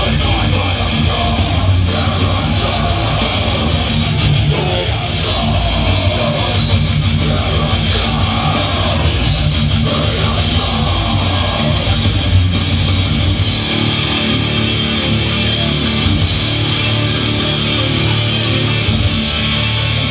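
Loud heavy rock music with electric guitar, playing steadily.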